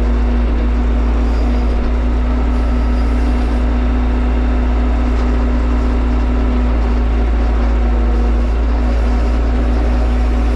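Tractor engine running steadily, heard from inside the closed cab, a constant low rumble with a steady hum over it.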